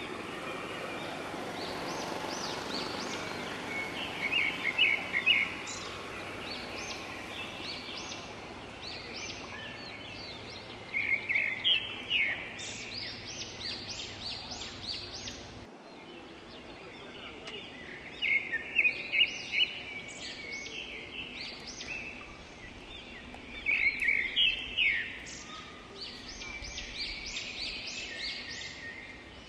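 Forest birds calling in quick bursts of short, high chirping notes, four clusters a few seconds apart, over a steady background hiss of forest ambience.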